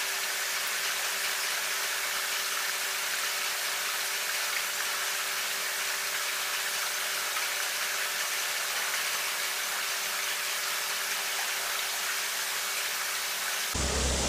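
Steady, even hissing noise with a faint low hum underneath, unchanging throughout.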